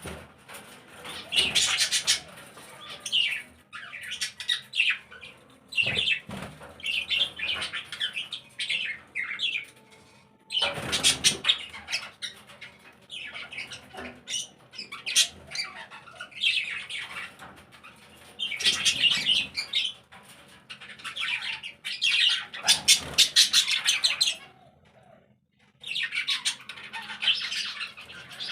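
A flock of cage birds, budgerigars among them, chirping, chattering and squawking in bursts of a few seconds with brief lulls between.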